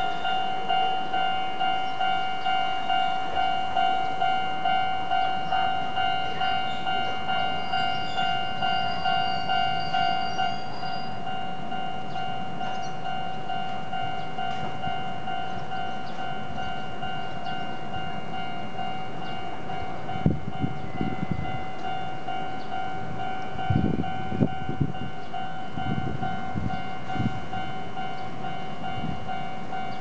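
Japanese railway level-crossing alarm ringing, its electronic bell tone pulsing about one and a half times a second, with a rhythm the uploader finds slightly uneven. After about ten seconds the pulsing fades and the tone goes on steadier, and several low thumps come in the second half.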